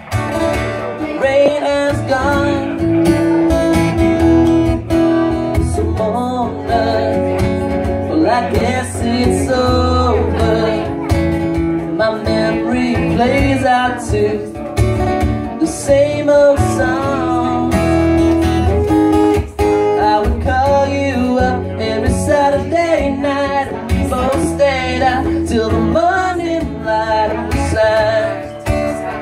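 A man singing a song while strumming an acoustic guitar, performed live.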